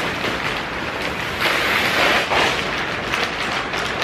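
Plastic wrapping around a roll of electric poultry netting rustling and crinkling as the roll is pulled out of its box and handled, loudest for about a second in the middle.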